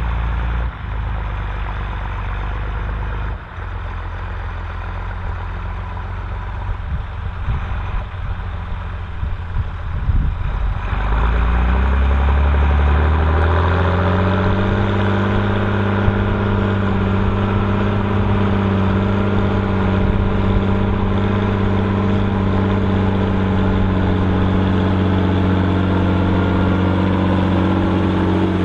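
Volvo BM 2654 tractor's six-cylinder diesel engine running, its revs climbing smoothly about eleven seconds in and then holding steady and louder for the rest of the time.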